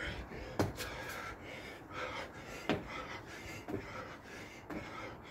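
A man breathing hard and panting through burpees and jump squats, about one breath a second. Sharp thuds come a few times as he lands on the paving slabs, the loudest two just under a second in and near the three-second mark.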